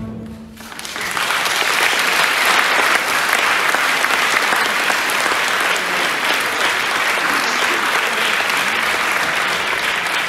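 Audience applauding steadily, rising in about a second in as the orchestra's last held note dies away.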